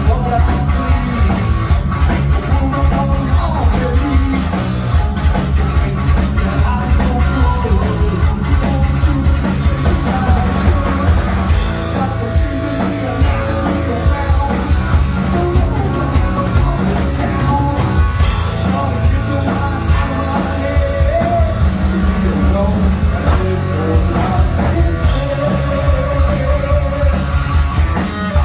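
Heavy metal power trio playing live: distorted electric guitar, bass and drums at full volume, with a fast, dense drum beat.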